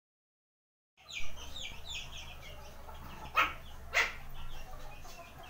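Shih Tzu puppies play-fighting, with two sharp yips about halfway through, over a steady run of quick, high chirps. The sound starts about a second in, after silence.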